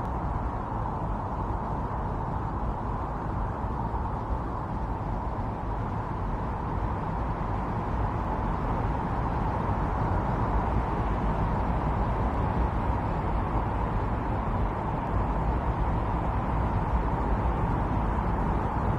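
Steady blizzard wind noise, a continuous rushing with a brighter band in the middle of the range, swelling slightly about halfway through.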